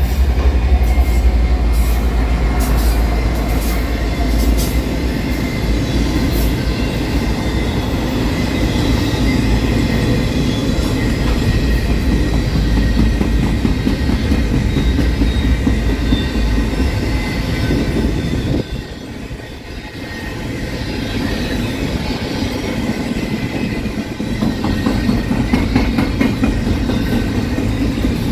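Freight train of hopper cars and double-stack container well cars rolling past: a steady heavy rumble of wheels on rail, sharp clicks over the rail joints in the first few seconds, and a thin high wheel squeal over it. The noise dips briefly about two-thirds of the way through, then builds again.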